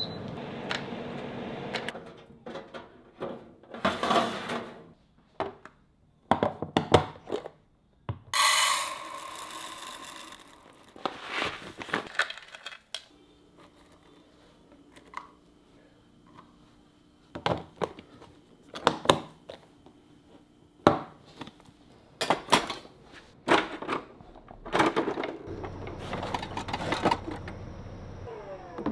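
Kitchen preparation sounds: a string of knocks, clicks and clatter from handling containers and utensils. About eight seconds in there are a couple of seconds of rustling noise, and a faint steady hum runs through the middle stretch.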